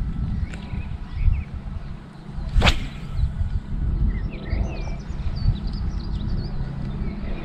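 Steady wind rumble on the microphone, with one sharp click about two and a half seconds in and birds chirping through the second half.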